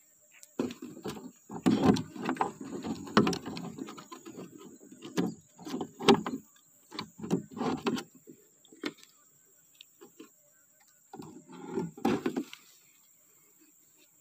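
Handling noise as a hanging jerrycan of sugar-palm sap is taken down at the tapping point: irregular knocks, scrapes and rustling in two spells, the first several seconds long and the second shorter, near the end.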